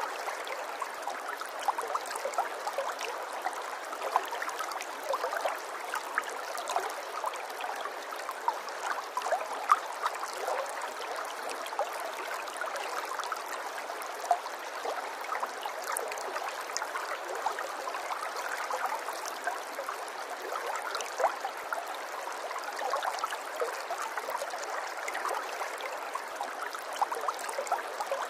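Running water babbling steadily in a small stream, full of small splashes and gurgles.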